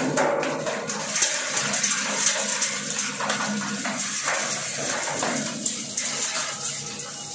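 Fatka machine running: its electric motor spins the beater shaft inside the drum, giving a steady rushing of air with a low hum underneath.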